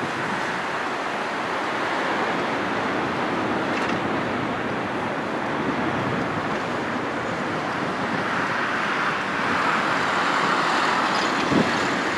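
Airbus A380's four Rolls-Royce Trent 900 turbofans at high power as the jet climbs away after takeoff: a steady jet rumble that swells a little about two-thirds of the way through. There is a brief thump near the end.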